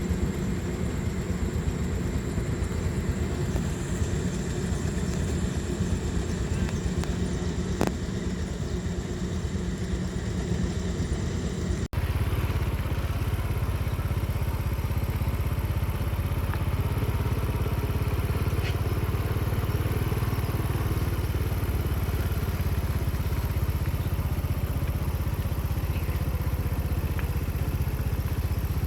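Engine of a rice-harvesting machine running steadily. About twelve seconds in, the sound changes abruptly to a lower, steadier engine sound.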